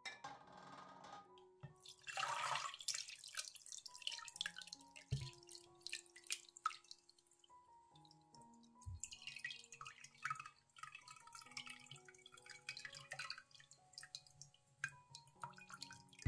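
Whey and soft milk curds poured from a glass jar into a plastic strainer: liquid splashing and dripping, with two soft low thuds. Quiet background music with slow held notes throughout.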